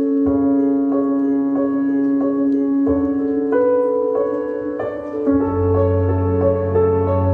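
Instrumental music: a keyboard figure with notes struck about one and a half times a second over a held tone, joined by a deep sustained bass note about five seconds in.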